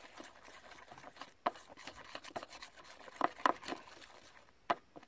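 Metal spoon stirring a sticky glue-and-glitter slime mixture in a plastic bowl: irregular scrapes and wet clicks against the bowl, with a few sharper knocks about a second and a half in, around three and a half seconds, and near the end.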